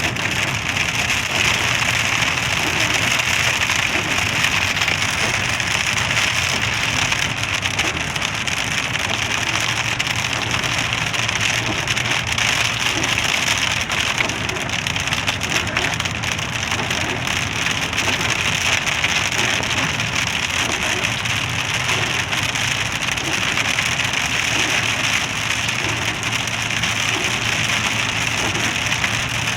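Heavy rain pouring steadily in a thunderstorm, an even hiss with a low steady hum underneath.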